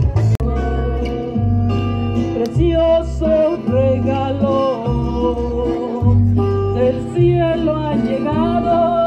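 Live band music over a PA system, a pirekua: a singer over pulsing bass and drums.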